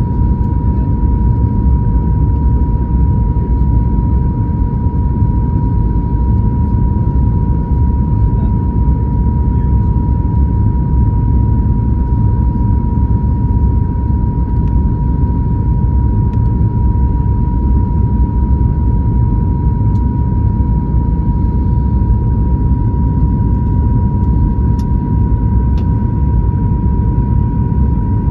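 Cabin noise inside a Boeing 737 MAX 9 on approach: a steady low rumble of the engines and rushing air, with a thin steady whine held on one pitch above it.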